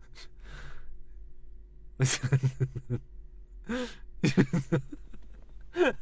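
A person's voice in short wordless bursts and breaths, a quick run of them about two seconds in and more near the middle and end.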